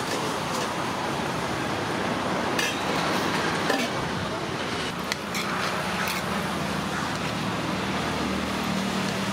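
Steady roadside traffic noise, with a few sharp clinks of steel serving vessels and a ladle a few seconds in.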